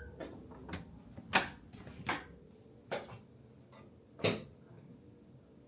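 A series of irregular knocks and clicks, about eight, with the loudest about a second and a half in and again about four seconds in.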